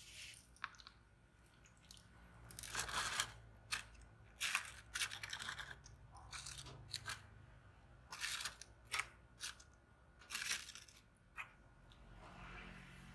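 Thin clear plastic tubs crinkling and scraping as they are handled: a series of short, irregular crackles.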